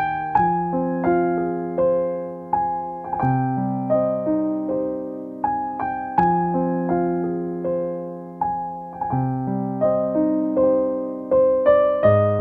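Background piano music: a keyboard plays soft chords and a melody, with notes struck about once or twice a second and each one ringing and fading.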